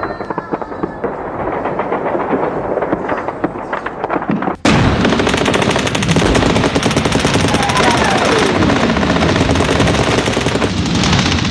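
Rapid automatic machine-gun fire, growing much louder and denser about four and a half seconds in and then running on without a break. A falling whistle sounds about eight seconds in.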